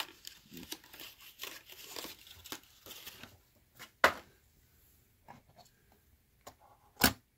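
Hands handling die-cast toy cars: rustling and crinkling for the first few seconds, then a few sharp clicks, the loudest about four seconds in and near the end, as the cars are picked up off the display.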